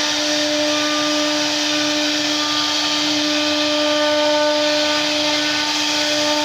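CNC router spindle running at a constant speed with a steady whine, its bit cutting into wood with a continuous hiss.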